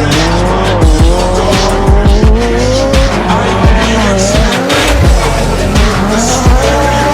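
Group B rally car engines revving up and down through gear changes at racing speed, over music with a steady drum beat.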